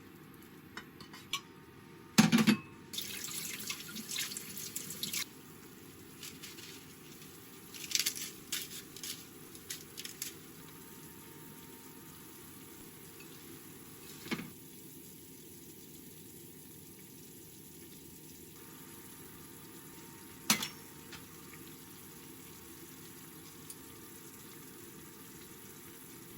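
Kitchen sink work: a sharp knock, then tap water running for a few seconds, followed by clinks of dishes and a few more single knocks with quiet between.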